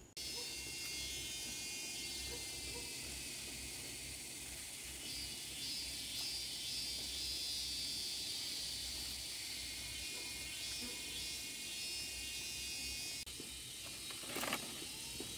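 A steady, high-pitched chorus of insects chirring. About a second before the end there is a brief louder rustle or knock.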